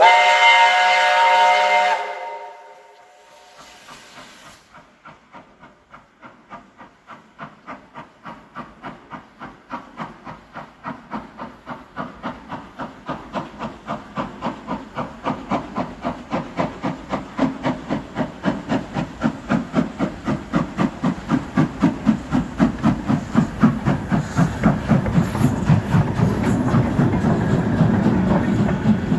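Steam locomotive sounding its chime whistle loudly for about two seconds. Then its exhaust chuffs in a steady beat of about two or three a second, growing louder as the engine draws near and passes close by.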